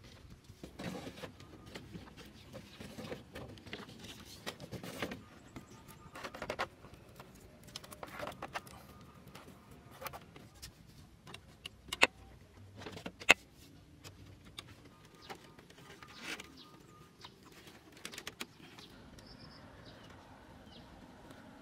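Bamboo poles knocking and clattering while being handled and lashed onto a roof frame, a string of irregular wooden clicks and knocks with two sharp clacks a little past the middle. Faint birdsong near the end.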